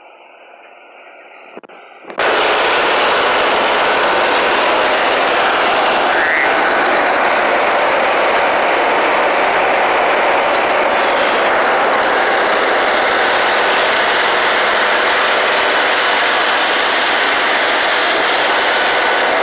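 Peterson Pacific horizontal grinder running under load: a loud, steady mechanical noise of its engine and grinding mill, with ground wood pouring off the discharge conveyor. It starts much quieter and jumps suddenly to full loudness about two seconds in.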